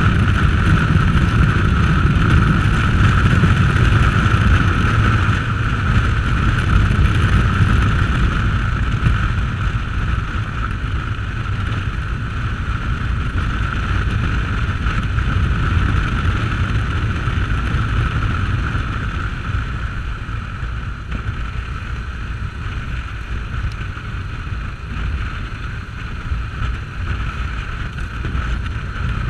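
Motorcycle on the move at road speed: steady wind rush on the microphone over the engine's low drone, with a constant high tone running through it. It eases off slightly after about nine seconds.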